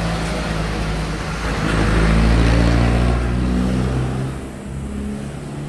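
Street traffic: a motor vehicle's engine running past close by, growing loudest about two seconds in and then fading.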